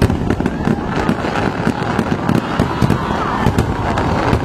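Dense, continuous crackling made of many small sharp pops in quick succession.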